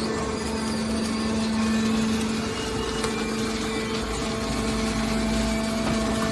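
Hydraulic can baler running: its motor and hydraulic pump give a steady hum, with a deeper rumble for about a second and a half, about four seconds in.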